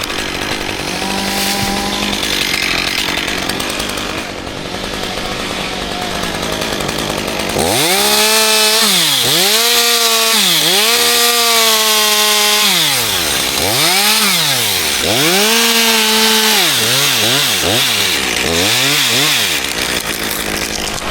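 Two-stroke chainsaw running under load and revving, its engine speeding up and dropping back to idle over and over from about eight seconds in.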